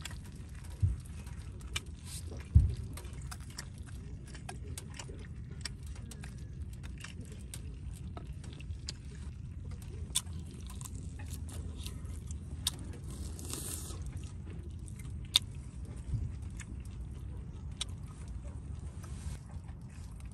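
Cooking over a pellet-burning camp stove: scattered sharp crackles and pops from the fire and the frying lamb chops over a steady low rumble. Two heavier thumps come about one and two and a half seconds in, and a brief hiss about two-thirds of the way through.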